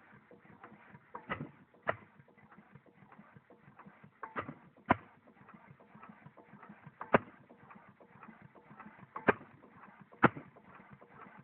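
Sharp knocks and clicks at uneven intervals, about seven in all, over a faint hiss.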